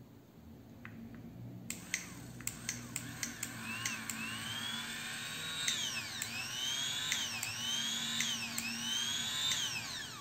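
Fakir hand blender motor run bare out of its casing on a test run, starting about two seconds in with a few sharp clicks, then whining in repeated surges that rise in pitch and drop back, about once a second. It cuts off near the end.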